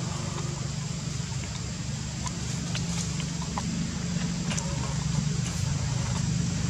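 A steady low rumble, engine-like, with scattered faint short chirps and clicks over it.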